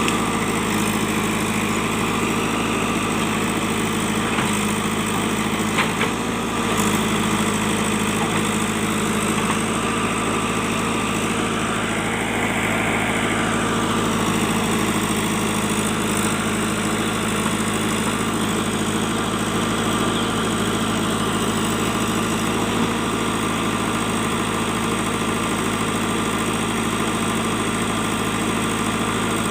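JCB backhoe loader's diesel engine running steadily, with a few short knocks in the first six seconds.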